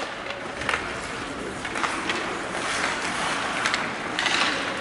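Ice hockey play in a rink: skate blades scraping the ice in a steady hiss, with a few sharp clacks of sticks and puck.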